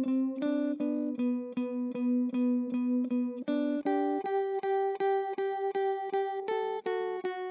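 Guitar picked in a quick, even pattern of about four notes a second, the notes ringing on and changing pitch several times, played through an Old Blood Noise Endeavors Black Fountain oil-can delay pedal.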